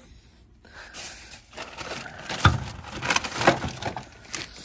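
Rummaging through a car trunk full of plastic bags: a crackly rustling of bags, with a few sharp knocks and clatters as items are shifted.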